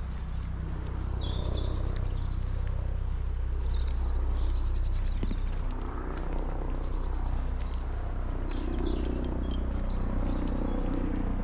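Small songbirds chirping, with quick runs of high repeated notes and short downward-sliding calls every second or two, over a steady low background rumble.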